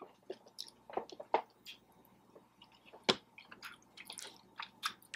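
Close-up wet chewing and squishy mouth sounds of someone eating cheesy pasta, in soft scattered clicks, with one sharper click about three seconds in.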